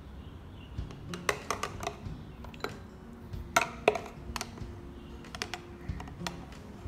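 Irregular light clicks and taps of a metal spoon knocking against a clear jar of sliced kiwi as the fruit is handled and scooped. The sharpest pair comes a little under four seconds in.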